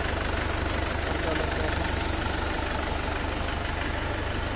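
Swaraj 841 XM tractor's diesel engine idling steadily with no knock, its worn rear main bearing and big-end bearings freshly replaced.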